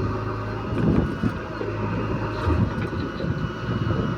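Diesel engine of heavy earthmoving machinery running steadily, with a few irregular louder surges or thuds.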